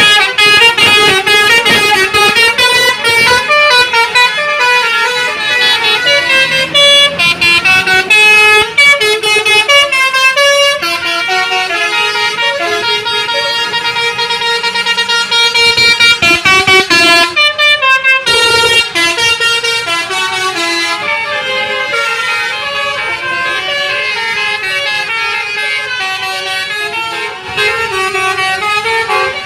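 Telolet basuri horns on tour buses, loud, playing tunes note by note in quick stepped pitches, one melody running into the next.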